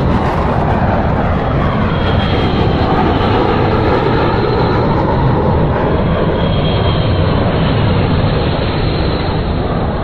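Large aeroplane's engines running loudly and steadily, a dense rush with faint whining tones that slowly drift in pitch.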